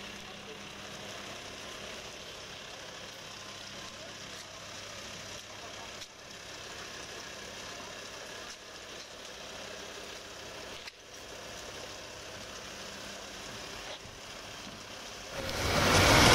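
A vehicle engine idling steadily under street noise. Near the end a much louder rush of noise sets in suddenly.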